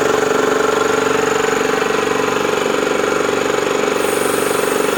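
Bauer high-pressure air compressor running steadily just after start-up, with a fast, even pulsing throb. A higher hiss joins about four seconds in.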